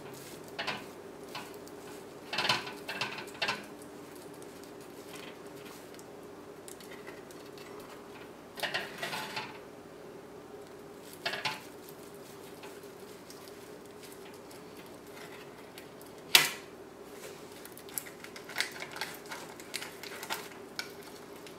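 A knife cutting down through a sponge cake in a few short scraping strokes, with the blade clinking against the metal pan beneath it. One sharp clink comes about sixteen seconds in. A faint steady hum lies underneath.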